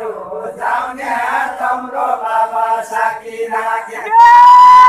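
Group of men singing a deuda folk song together in a chant-like unison verse. Near the end a single voice close to the microphone holds one very loud, slightly rising high note.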